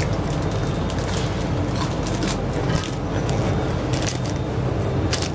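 Strong wind buffeting the microphone, a steady low rumble throughout, with several sharp crackles of a small plastic snack wrapper being handled and opened.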